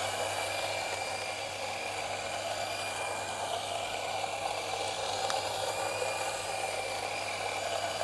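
Electric on-demand espresso grinder grinding coffee beans straight into a portafilter on a timed dose. The motor and burrs run steadily with a constant hum and whine.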